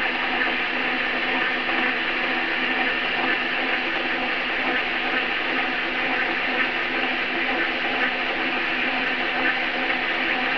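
Metal lathe running steadily in reverse, its chuck spinning as it turns a steel socket.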